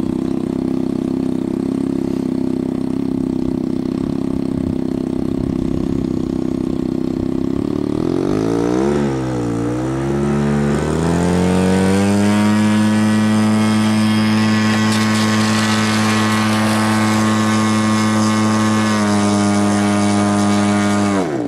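Motors of a radio-controlled model Airbus A320 running as it comes in to land: a steady pitched whine whose pitch swoops down and up about halfway through, then holds higher and steady, steps down near the end, and dips sharply at the close as it touches down.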